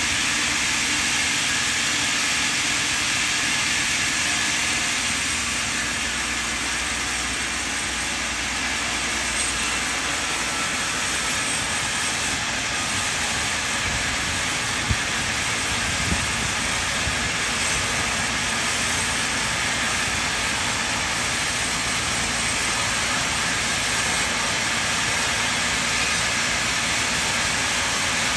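Large sawmill band saw running steadily as its blade rips lengthwise through a thick timber beam, a continuous even machine-and-cutting noise. Two short knocks come about halfway through.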